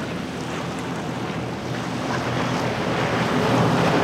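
Triple Mercury outboard engines on a Nor-Tech 34 center console running at speed, a steady low drone that grows louder from about halfway through as the boat comes closer, over surf, hull spray and wind on the microphone.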